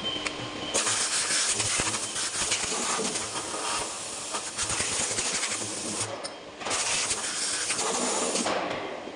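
Loud hissing in two bursts that start and stop abruptly: a long one of about five seconds, then a short one of about two seconds.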